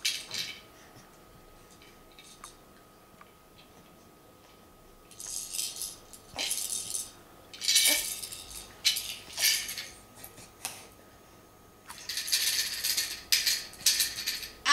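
Plastic baby rattle shaken in short bursts, a bright rattling with pauses between. A few soft ticks come first; the shaking starts about a third of the way in and the longest run is near the end.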